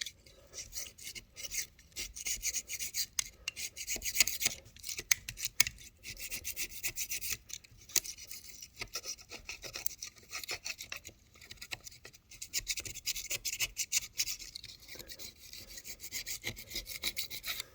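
A scraper rasping over the deck, scraping off old Sikaflex sealant residue where the cabin top rails sit. It makes rapid repeated strokes with a hissy, high-pitched sound, in runs broken by short pauses.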